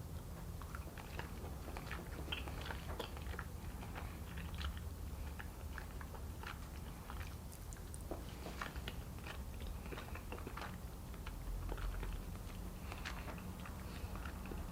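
A person chewing gummy fruit snacks: many small, irregular mouth clicks over a low steady hum.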